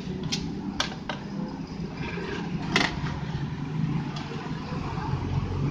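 A few small sharp clicks and taps from probe leads and a circuit board being handled on a workbench, four in the first three seconds, over a steady low rumble.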